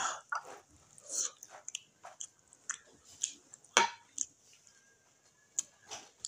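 Close chewing and wet mouth smacks of a person eating stewed beans and garri by hand, coming as irregular short clicks, the sharpest just before four seconds in.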